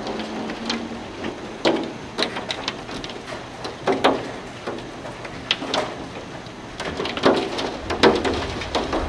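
Hailstones pelting down: a steady hiss with irregular sharp clacks of stones striking hard surfaces, coming thicker and louder near the end.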